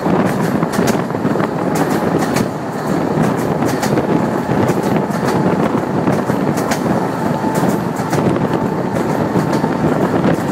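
Passenger train running, heard from an open carriage window: a steady rumble and rush with the wheels clicking over rail joints in irregular clusters.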